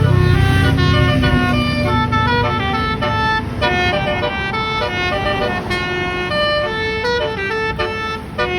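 A bus's basuri musical horn plays a melody of short, stepped notes. A low rumble underneath fades about a second in.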